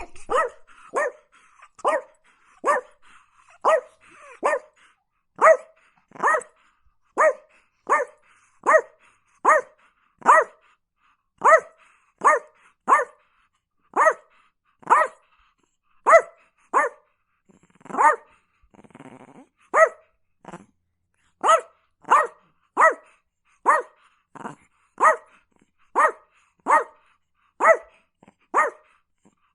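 Chihuahua barking in a steady, repetitive run of sharp, high-pitched yaps, a little more than one a second, with a short break about two-thirds of the way through.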